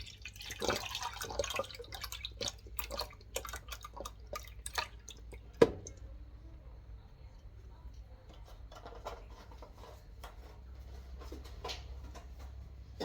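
Milk being poured into a pot, followed by a run of kitchen clicks and knocks, with one sharp knock about five and a half seconds in.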